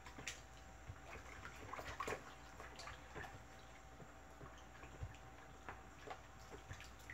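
A liquid mixture stirred with a stick in a plastic bucket: faint, irregular sloshing with scattered small clicks.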